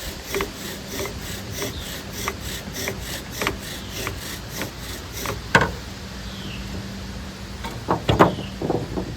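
Bow drill: a yucca spindle rubbing in a spalted white oak fireboard under a fatwood bearing block, bowed back and forth at about two to three strokes a second. The strokes stop a little over halfway through, and a sharp knock and then a few more knocks follow.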